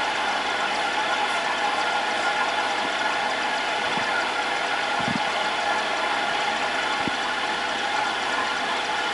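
Aquarium filter pump running: a steady mechanical hum with a hiss of moving water, and a few soft low knocks.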